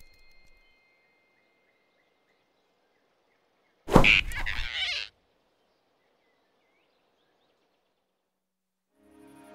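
Animated-film grab sound effect: one sudden loud burst about four seconds in, as the big rabbit snatches the flying squirrel, lasting about a second and cutting off sharply. Before it, faint forest ambience with thin high tones.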